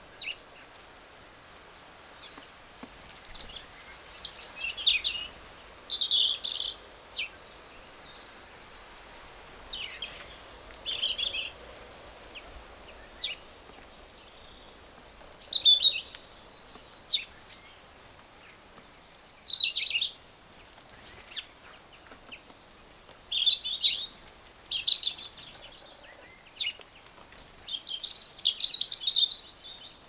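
Small songbirds singing in short, high, varied phrases every three or four seconds, with a few sharp ticks between them.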